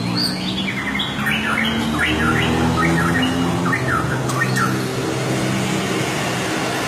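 Songbird singing a fast series of short chirps that ends a little over two-thirds of the way through, over a steady low hum.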